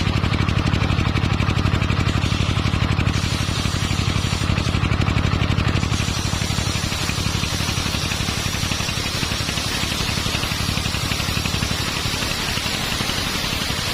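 Engine-driven circular saw rig running steadily with a fast, even engine beat and a strong low hum; about six seconds in a brighter hiss joins it.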